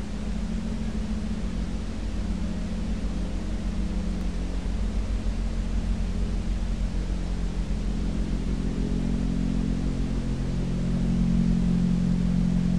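Steady low mechanical drone with a rumble underneath and a few held low tones, like something running in motion; it swells louder about ten seconds in.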